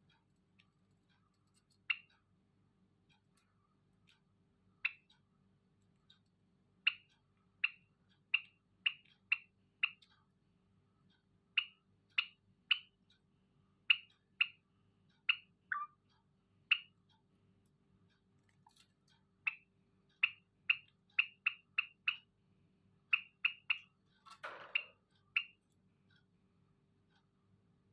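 Zebra finches giving short, sharp chirping calls, singly and in quick runs of two to five, over a faint steady low hum. A brief scratchy rustle comes a few seconds before the end.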